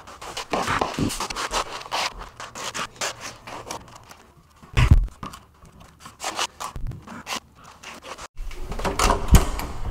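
Notched trowel scraping flooring adhesive across a plywood underlay in repeated, uneven strokes. One dull thump about five seconds in.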